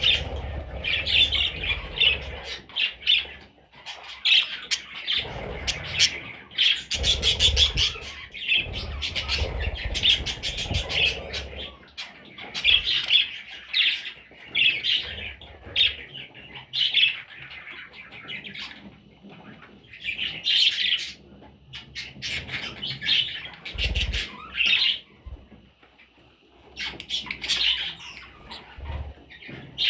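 Budgerigar chicks squawking and chirping in repeated bursts of short, scratchy calls, with some rustling now and then.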